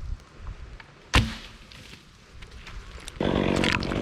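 A sharp knock about a second in, then near the end a chainsaw engine starts up and runs steadily.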